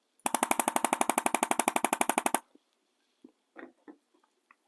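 ArthroStim electric chiropractic adjusting instrument firing a rapid, even train of percussive thrusts, about thirteen a second, for about two seconds before stopping. A few faint clicks follow.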